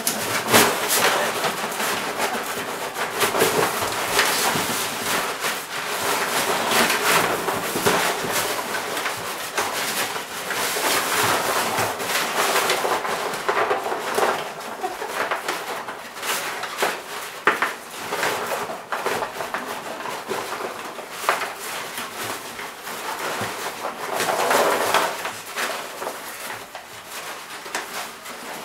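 A dog tearing and rustling paper wrapping on a gift box, with continuous irregular crinkling and ripping.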